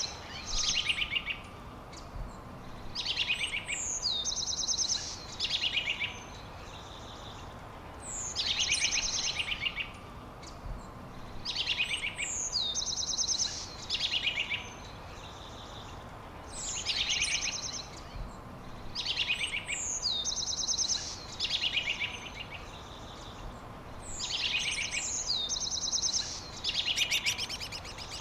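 A songbird singing the same short, high-pitched phrase over and over, every two to three seconds, each phrase a quick run of trilled notes, over a faint steady background hiss.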